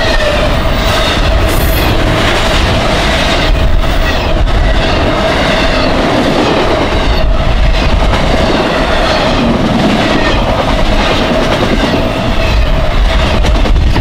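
Intermodal freight train of double-stack container well cars passing at speed at close range: a loud, steady rumble and rush of the cars, with wheels clacking over the rails and a thin steady whine running underneath.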